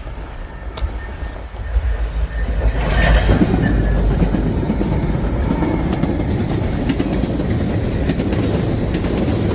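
Freight train of autorack cars rolling past, a steady low rumble with the wheels clicking rapidly over the rail joints. It grows louder about three seconds in.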